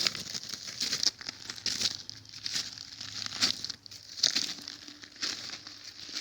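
Walking footsteps crunching on dry ground, about one step a second.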